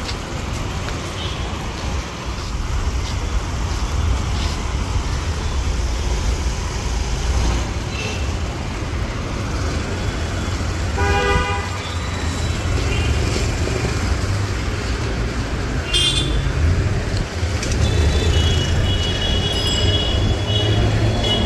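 Busy street traffic rumbling steadily, with a short vehicle horn toot about halfway through and thin, higher-pitched tones near the end.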